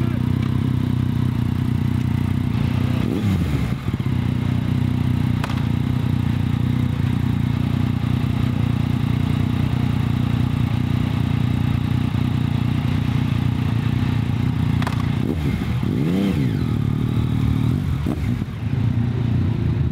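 Yamaha motorcycle engine running at low speed with a steady note. The rider blips the throttle briefly, rising and falling in pitch, about three seconds in and again around fifteen to seventeen seconds.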